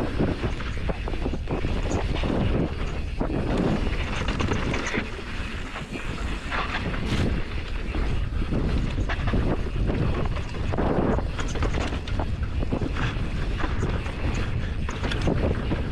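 Wind rushing over a helmet-mounted action-camera microphone during a fast mountain-bike descent, with the tyres rolling over loose dirt and the bike clattering and rattling irregularly over bumps.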